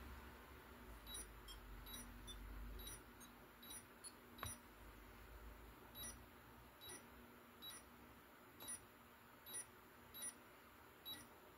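ABI Systems AL-D320 touch dimmer switches giving short, faint, high beeps as their touch buttons are pressed, one beep per touch, irregularly about once a second: the repaired switches registering each touch. A soft tap sounds about four and a half seconds in.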